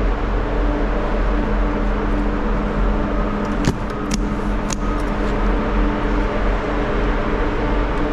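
Steady machinery drone of a ferry's vehicle deck, a low hum with a noisy rush over it, with three sharp metallic clicks a little past the middle.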